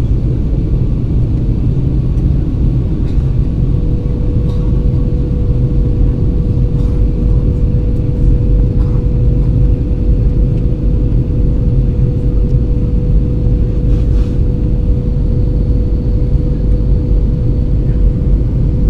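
Steady cabin noise inside an Airbus A320 airliner on its descent to land: a loud, even, deep rumble of engines and rushing air. A steady hum joins in about four seconds in.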